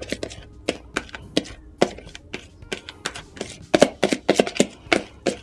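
Irregular clicks and light taps, several a second, from a plastic bowl being tipped and scraped out by gloved fingers as thick mustard marinade slides out. The taps bunch up and grow louder about four seconds in.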